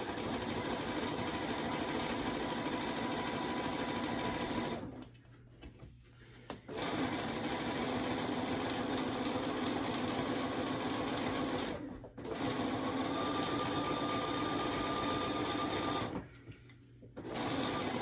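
Bernina sewing machine stitching steadily, sewing binding on with its binder attachment. It stops for about two seconds about five seconds in, pauses briefly near the middle, and stops for about a second near the end before running on.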